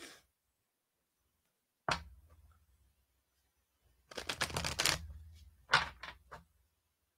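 Oracle cards being handled on a tabletop: a sharp knock about two seconds in, a quick run of card clicks and flicks about four seconds in, then a couple of lighter taps.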